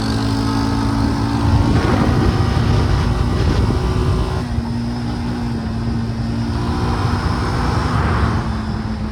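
Four-wheeler (ATV) engine running under way, with its pitch changing about two seconds in and again near halfway.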